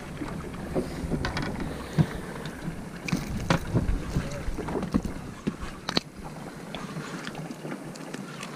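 Wind buffeting the microphone aboard a boat, with a low rumble that stops about six and a half seconds in. A few sharp knocks sound over it, the loudest about two seconds in.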